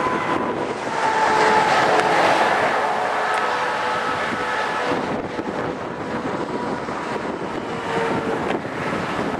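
Wind blowing across the microphone, a steady rushing that gusts louder about a second in and slowly eases.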